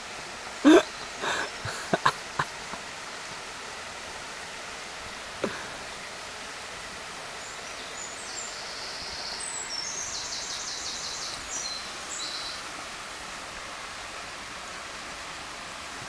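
A shallow burn running over stones, a steady rush. About a second in there is a short, loud vocal sound, followed by a few sharp knocks. Midway a small bird sings high-pitched notes, including a fast trill.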